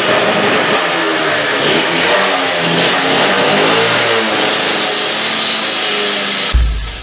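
Gas-powered cut-off saw running, its two-stroke engine revving up and down. From about four and a half seconds in, a harsher hiss as the abrasive disc cuts into steel. Music with a heavy drum beat comes in near the end.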